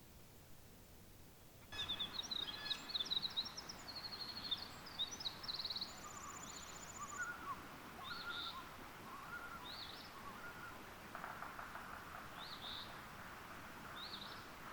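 Birdsong from several small birds. After near silence, a burst of chirps and trills starts abruptly about two seconds in, then a short call repeats every second or two.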